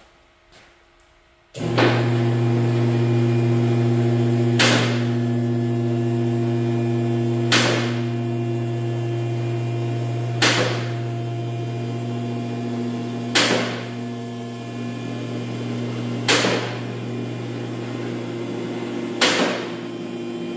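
Two-post 9,000-pound car lift raising a loaded vehicle: its electric hydraulic pump motor starts about a second and a half in, hums steadily and cuts off near the end. Six sharp clicks, about three seconds apart, are the lift's safety locks dropping into each latch position as the carriages rise.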